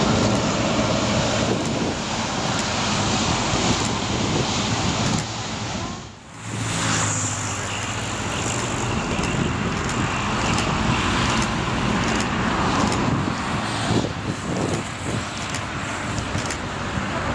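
Boeing 777-300ER's GE90 jet engines running at taxi power: a steady rushing noise with a low hum. The sound cuts out briefly about six seconds in, then carries on with a faint high whine.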